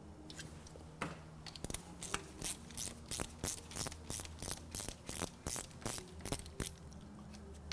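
Ratchet wrench clicking in a steady run, about three clicks a second, as it backs a nut off a thermostat housing stud; the clicking stops about a second before the end.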